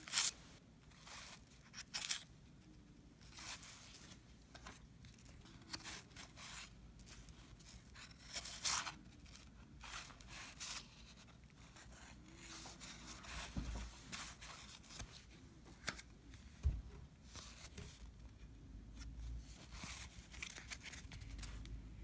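1990 Fleer basketball wax packs being handled and torn open, with the cards shuffled through. Scattered, irregular crinkling and tearing of the wrapper paper, with a couple of soft low thumps in the second half.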